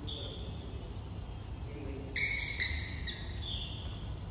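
Sports shoes squeaking on an indoor badminton court floor: a short squeak at the start, a louder one about two seconds in that lasts about a second, and another just after, over a low steady hum.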